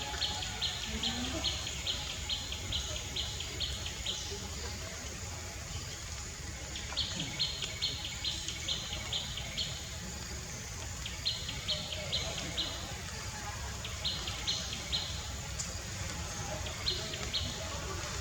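A bird calling in bouts of quick, high chirps, about four or five a second, each bout lasting one to four seconds, over a steady low background noise.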